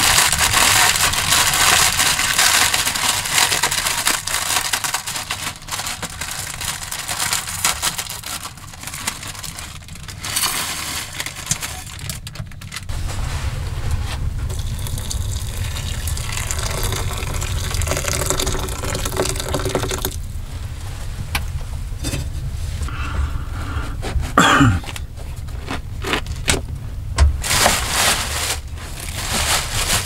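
Water poured into an enamel bowl, with scattered knocks and clatter from handling things on a wooden table.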